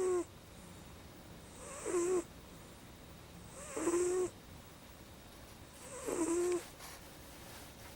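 A sleeping pet snoring: short, regular snores about every two seconds, each a low hum with a breathy hiss.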